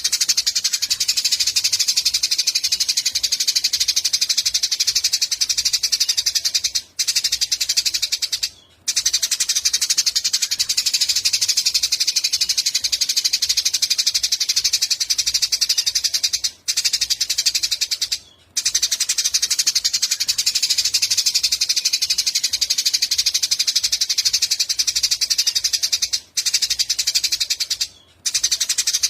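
Small songbird's rapid, high-pitched trilling chatter, looping continuously as a masteran recording for training songbirds. It is broken by a few brief pauses.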